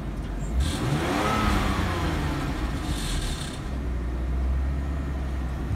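BMW E46's 2.0-litre M52TU straight-six running at idle, heard from inside the car. About a second in there is one short rev that rises and falls back to a steady idle.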